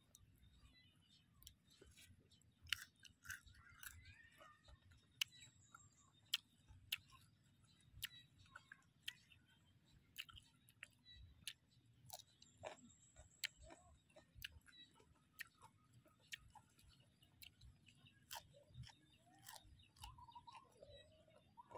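Chewing and crunching of raw green mango slices dipped in sauce: an irregular run of crisp clicks, about one or two a second.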